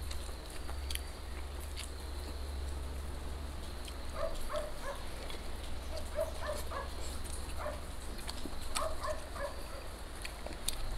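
Short, high animal calls in quick groups of two to four, starting about four seconds in, over a steady low hum and scattered light clicks.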